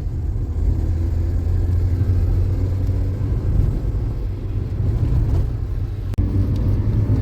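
Steady low rumble, like a running vehicle engine or wind on the microphone. It breaks off abruptly about six seconds in and carries on slightly changed.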